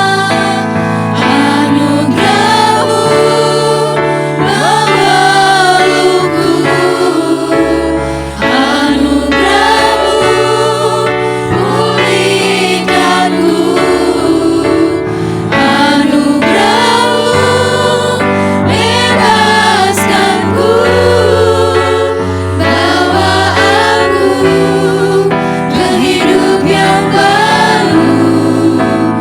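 Church choir singing a gospel worship song in harmony, over sustained low bass notes.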